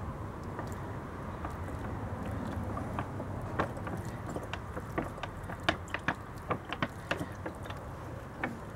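Water poured from a plastic cup onto potting soil in a plastic pot, with scattered crackles and clicks as the cup and pot are handled, most of them in the middle of the stretch.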